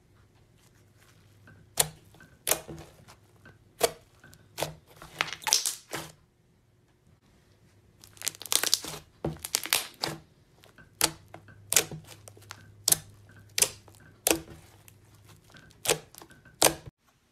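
Slime pressed and poked by fingers, giving sharp crackling pops and clicks roughly once a second, with two denser bursts of crackling along the way.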